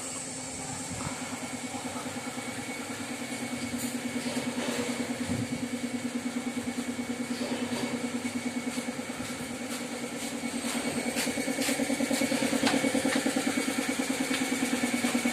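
Factory machinery running with a steady drone and a fast, even throb, getting louder over the second half, with a few sharp clicks.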